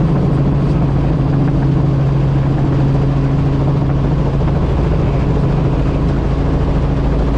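Light helicopter's engine and main rotor running steadily, heard from inside the cabin, as a constant low drone while it hover-taxis low along the runway.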